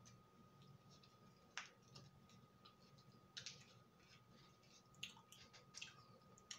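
Faint close-up eating sounds of a frosted cupcake being chewed and handled: soft mouth clicks and squishes with a few sharper crackles, the loudest about one and a half, three and a half and five seconds in.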